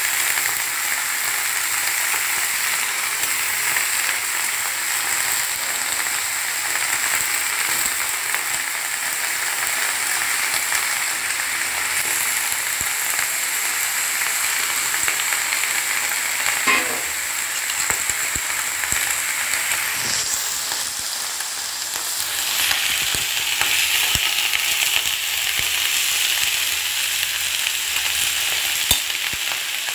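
Cauliflower stems, aubergine and potato sizzling steadily in hot oil in a steel wok, with a couple of short clicks.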